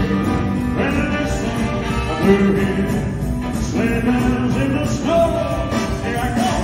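Live band playing in a rock-and-roll style, with electric guitar and drums and some singing, recorded from the audience in a concert hall.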